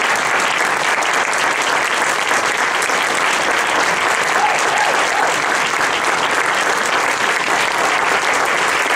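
Audience applauding steadily and at length at the end of a talk.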